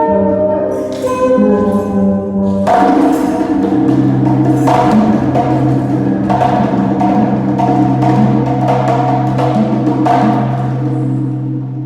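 Instrumental music: held pitched notes over a low steady drone, with struck percussion hits, wood-block-like, coming in about a quarter of the way in and repeating roughly every two seconds.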